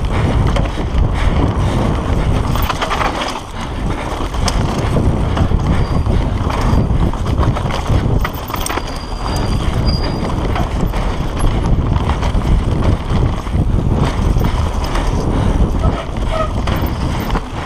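RAAW Madonna mountain bike ridden fast down a dirt trail, heard from a camera on the bike or rider. A steady rush of wind and tyre noise runs under a constant clatter of chain and frame rattling over bumps.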